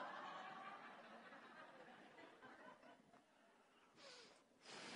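Near silence, with faint audience laughter in a hall that dies away over the first few seconds.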